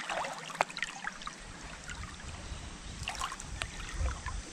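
Running water, with scattered small clicks and knocks over it. A low rumble comes in about a second and a half in.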